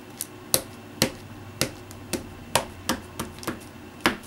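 Black ink pad being tapped repeatedly against a stamp to ink it up: about ten sharp, uneven taps, roughly two a second.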